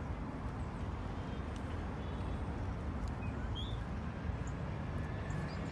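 Metal shopping trolley rolling over car-park tarmac, its wheels giving a steady low rattling rumble, with a few faint clicks.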